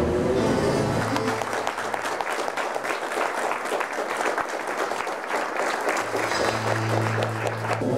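Audience applauding as a piece of orchestral string music ends in the first second, with a low held note sounding under the clapping near the end.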